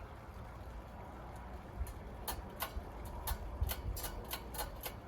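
A run of about ten small, sharp clicks, irregularly spaced, starting about two seconds in: a ceiling fan's metal pull chains being handled as extensions are clipped onto them.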